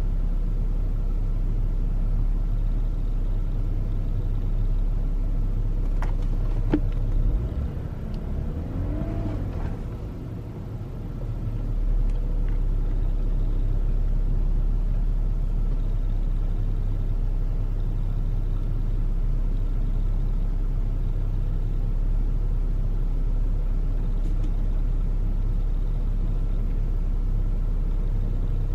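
A car engine running steadily with a low hum. About eight seconds in it briefly quietens, with a short rise and fall in pitch, then settles back.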